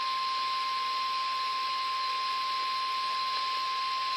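Weather radio 1050 Hz warning alarm tone: a single steady, unbroken high tone over radio hiss. It signals that a severe weather warning broadcast is about to follow.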